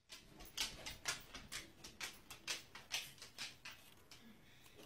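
Faint, quick scratching ticks, about four a second, from a cat's claws working at a cardboard box; they die away about three and a half seconds in.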